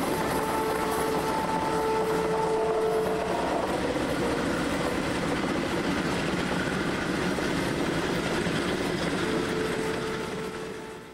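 Freight train rolling past with its wheels clattering over the rails, and a steady tone that comes and goes. The sound fades away near the end.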